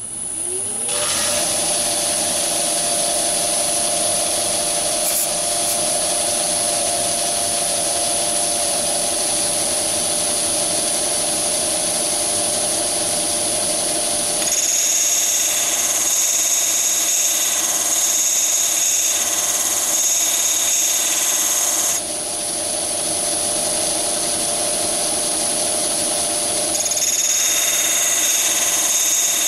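Myford ML7 lathe starting up and running, turning a diamond cup wheel that grinds the point of a small drill held in a collet against its face. The pitch rises as the spindle spins up; a high whine over the grinding drops in pitch about halfway through, goes back up, and drops again near the end.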